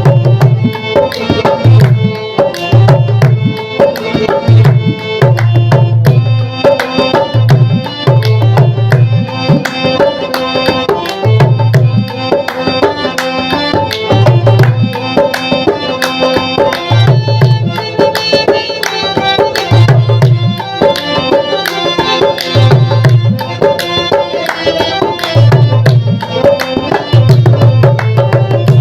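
Background music with hand-drum percussion and a steady, repeating beat.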